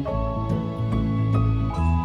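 Soft background music: gentle, slow-moving instrumental notes over a steady bass.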